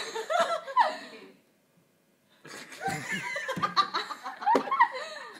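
Girls laughing, breaking off for about a second partway through, then laughing again.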